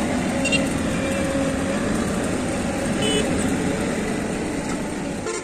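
Diesel engine of a crawler excavator running with a steady drone while it works its bucket over a dump truck, with a few light clicks.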